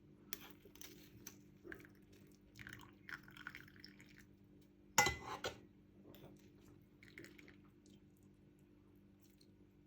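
A cup of freshly strained tea being handled: small clinks and soft liquid sounds, with one sharp clink of the cup against a hard surface about halfway through. A faint steady hum runs underneath.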